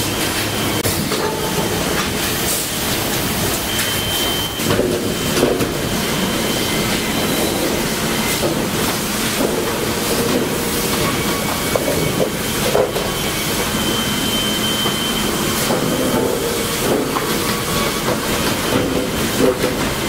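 Sawmill machinery running: the multisaw line and its chain transfer conveyors keep up a steady metallic clatter as they move sawn boards, with scattered knocks and a few brief high squeals.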